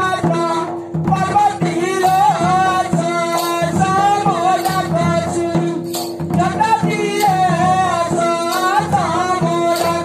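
Odia Danda Nacha folk song: a singer's wavering voice amplified through a microphone and PA, over drum and jingling percussion accompaniment.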